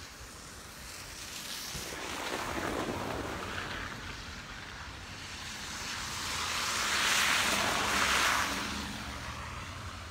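Wind gusting over the microphone, loudest about seven to eight seconds in, over a low steady engine hum from an idling vehicle.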